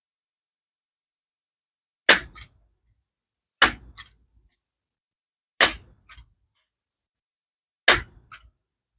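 Four sharp air rifle shots, about two seconds apart, each followed within half a second by a fainter second crack.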